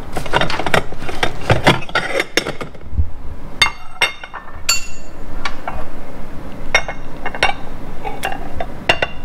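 Repeated clinks and knocks of dishware against a ceramic coffee cup, a few of them ringing briefly, as the microwaved fish is worked out of the cup.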